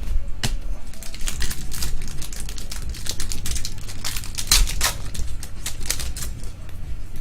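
Trading cards being flipped through by hand: a quick, irregular run of crisp flicks and slides of card stock, several a second, over a low steady hum.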